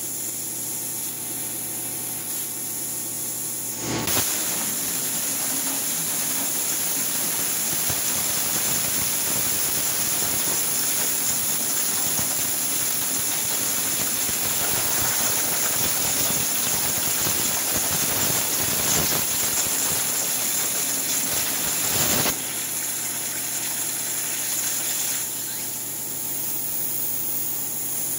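CNC plasma cutter's torch cutting steel plate: a steady hiss, then about four seconds in the arc fires with a sharp crack and cuts with a loud, even hiss for about eighteen seconds before cutting off suddenly, leaving the quieter hiss again.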